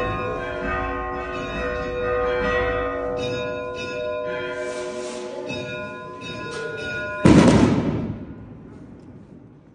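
Church bells ringing, struck over and over so their tones overlap and hang on. About seven seconds in, a sudden loud bang cuts across them and dies away over about a second.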